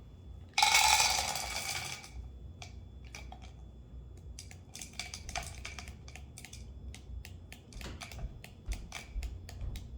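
Hands opening and emptying a firework canister shell: a loud scraping, pouring rush about half a second in that lasts over a second, followed by many small scattered clicks and rustles as the paper and contents are handled.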